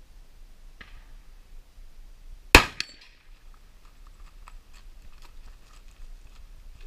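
A single loud, sharp gunshot about two and a half seconds in, followed a moment later by a fainter crack.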